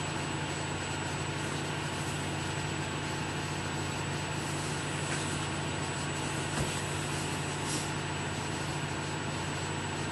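Steady hum and hiss of running equipment, with a faint high whine throughout and a couple of small clicks past the middle.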